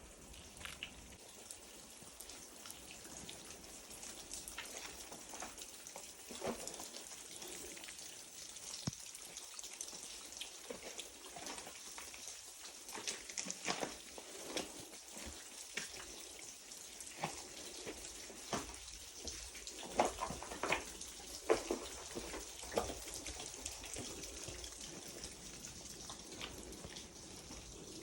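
Water dripping and splashing in irregular ticks over a steady hiss of running water. The drips come thicker about halfway through.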